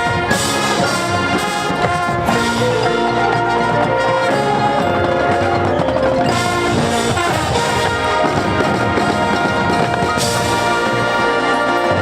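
High school marching band playing, its brass section holding full chords over percussion.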